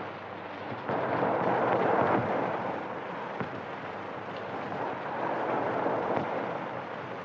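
Steady running noise of a passenger train, heard through the hiss of an old 1930s optical film soundtrack, with a few faint clicks. It grows louder about a second in and eases off again after a couple of seconds.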